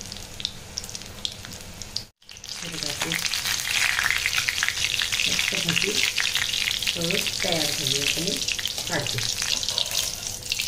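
Green chilli bhaji deep-frying in hot oil in a kadhai: a dense, steady sizzle and crackle. It breaks off briefly about two seconds in and comes back much louder.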